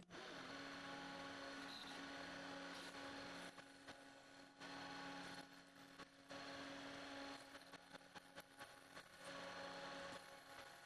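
Metal lathe running while a twist drill in the tailstock drills into the spinning handle: a faint steady machine hum, with a thin high whine that comes and goes about four times as the drill cuts.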